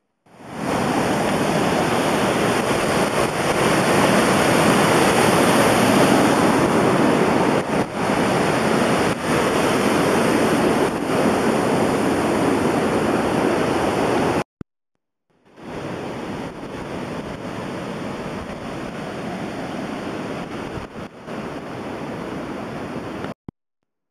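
Steady rushing noise, heard in two clips cut together. A loud stretch stops abruptly about two thirds of the way in, and after a second of silence a quieter stretch follows, which cuts off near the end.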